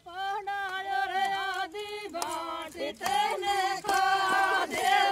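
A group of women singing a village folk song together, in long held, wavering notes. More voices join and the singing grows louder about two to three seconds in.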